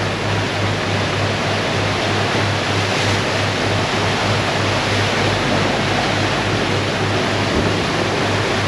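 Rushing, foaming wake water and wind as a sailing catamaran surfs dead downwind in strong wind, over a low pulsing drone from its twin diesel engines running at about 2000 rpm.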